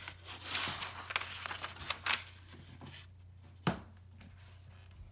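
Paper rustling as the pages of a printed instruction booklet are handled and turned, loudest in the first two seconds, with a sharp tap or knock a little over three and a half seconds in.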